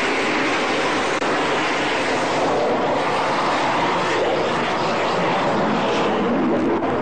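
A twin-engine Sukhoi fighter jet's engines running during a low pass, a steady, loud jet noise.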